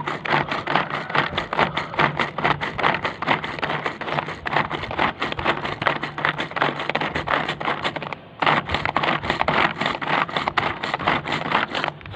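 Pigeon pull-cord vegetable chopper being worked with rapid, repeated pulls of its cord, its three blades spinning and clattering as they chop onion pieces inside the plastic bowl. There is a brief pause about eight seconds in before the pulling resumes.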